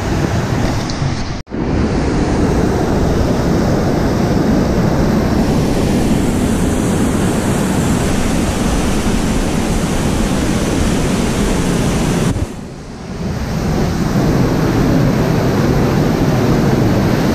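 Whitewater rushing steadily out of a concrete weir spillway, loud and close, as an even roar of water. It cuts out for a split second about a second and a half in and dips briefly about two-thirds of the way through.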